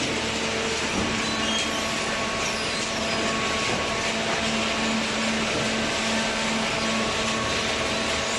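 Hydraulic cardboard baling machine running: a steady mechanical whir with a steady hum through it.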